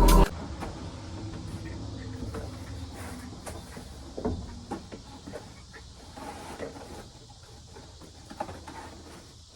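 A loud music-like sound cuts off abruptly just after the start, followed by scattered light clicks, knocks and rubbing of plastic animatronic parts being handled and fitted together.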